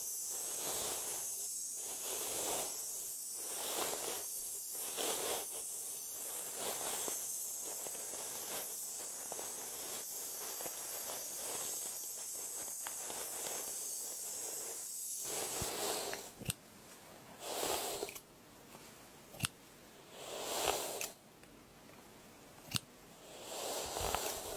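ASMR haircut sounds close to the microphone: rhythmic crunchy snipping strokes, about one to two a second, over a steady high hiss for roughly the first fifteen seconds. After that come a few separate snips and sharp clicks with quieter gaps between.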